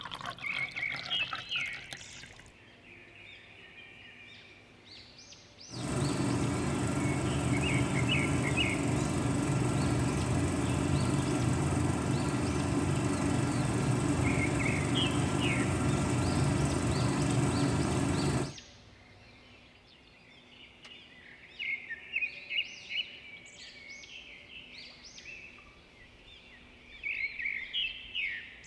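Water is poured at the start. About six seconds in, the small electric motor of a miniature homemade concrete mixer starts and runs steadily for about twelve seconds, then cuts off suddenly. Birds chirp throughout.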